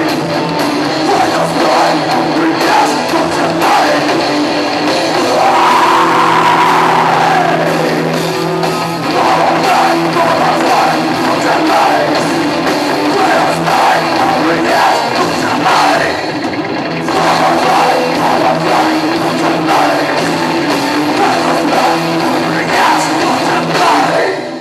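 Rock band playing live and loud, with distorted electric guitars, drum kit and singing. A few seconds in, a pitch rises and falls in one sweep.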